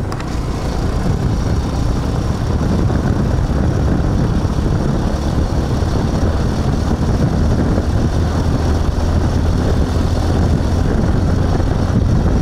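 A motor vehicle driving steadily at speed: a low engine hum under heavy wind rush buffeting the microphone.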